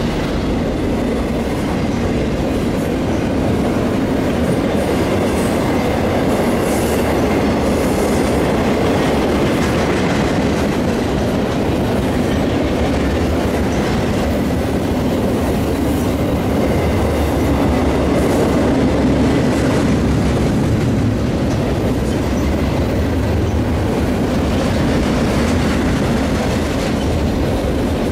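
Union Pacific freight train's cars rolling past on the rails: a steady, loud wheel-on-rail noise that holds without a break.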